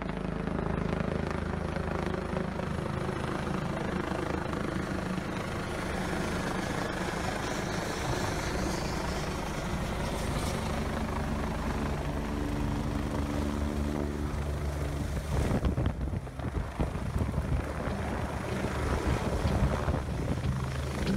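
Helicopter running as it comes in low overhead and lands, a steady drone of rotor and turbine with several held tones. From about fifteen seconds in it turns to a rougher, choppier beating with gusts.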